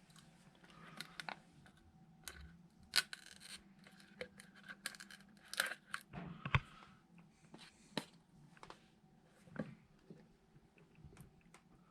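Scattered handling sounds of small parts being worked by hand: irregular clicks, scrapes and short tearing sounds, with louder clicks about three, six and a half, and ten seconds in.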